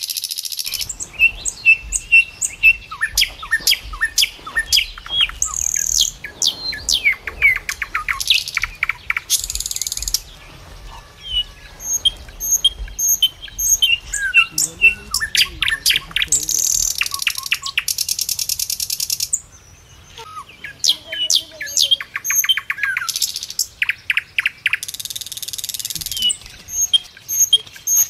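Many birds chirping and singing at once: sharp whistled notes, quick rising and falling calls and fast trills overlapping without a break, with a faint low rumble underneath.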